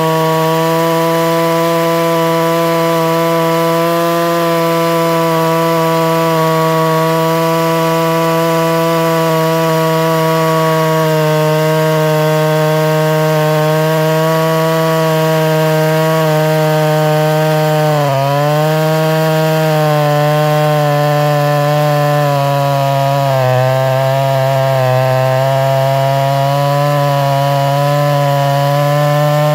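Two-stroke chainsaw with a 36-inch bar and full-chisel chain running at high revs, cutting through a green hardwood log. The engine note holds steady, then sags briefly about two-thirds of the way through and a few more times soon after, before picking back up.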